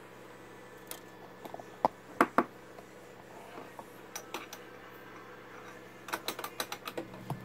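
Scattered light clicks and taps of small tools handled during circuit-board repair work: a few sharp ones about two seconds in and a quick run of them near the end, over a steady low hum.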